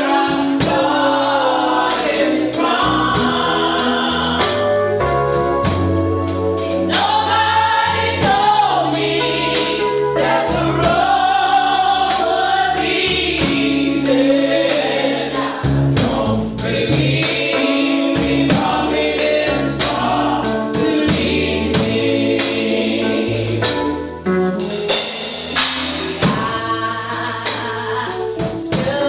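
Women's gospel vocal group singing in harmony into microphones, over held bass notes that change in steps and a tambourine shaken and struck throughout.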